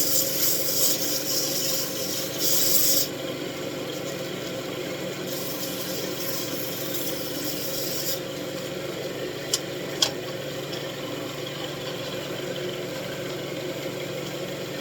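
Wood lathe running steadily while sandpaper is held against the spinning wooden wand, making a hissing rub in two spells of about three seconds each. Afterwards the lathe runs on alone, with two short clicks a little before the middle of the second half.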